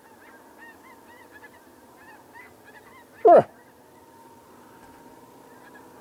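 A distant flock of geese honking, many small calls in quick succession, with one loud, short call about three seconds in that drops steeply in pitch.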